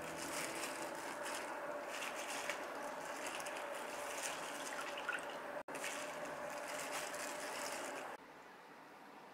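Water trickling and dripping as soaked cucumber slices are lifted out of a bowl of water into a wire mesh strainer. The sound cuts out briefly past halfway and turns much quieter near the end.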